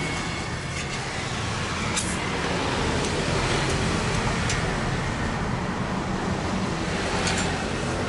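Gas welding torch flame hissing steadily against a motorcycle muffler being repaired, over a low rumble, with a few light metallic clicks as the muffler is handled.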